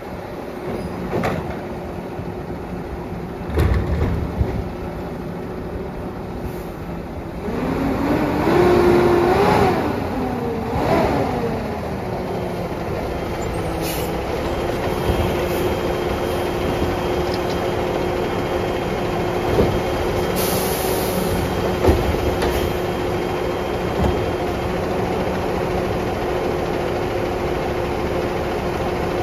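Peterbilt Labrie Automizer side-loader garbage truck running with a steady whine. The engine revs up and down twice as the truck pulls up, about eight to eleven seconds in, then settles to idle. A short hiss of air comes about twenty seconds in.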